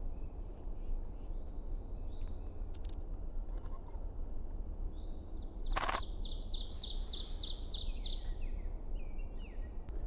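Ovenbird singing one song about six seconds in: about ten repeated two-note 'teacher' phrases that grow louder, then stop. A sharp click comes just before it, over a steady low wind rumble and faint calls of other birds.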